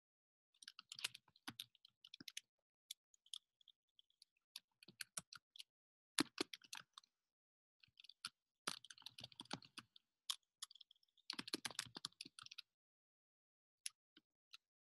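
Typing on a computer keyboard: several bursts of quick keystrokes with short pauses between, then a few single key taps near the end.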